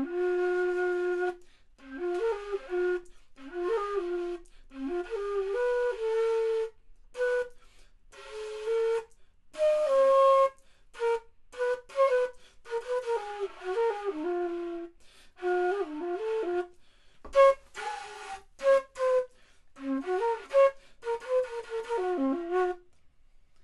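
3D-printed baroque flute (traverso) played in short, halting phrases of single notes in its low-middle register, with frequent breaks between them. The tone is breathy and unsteady, the sign of a player new to the instrument who finds it hard to get a clear tone.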